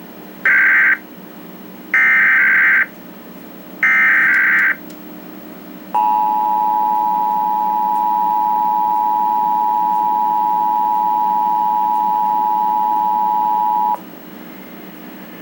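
Emergency Alert System Required Monthly Test played through a television: three short bursts of SAME header data tones, then the EAS two-tone attention signal (853 and 960 Hz played together) held steady for about eight seconds before it cuts off.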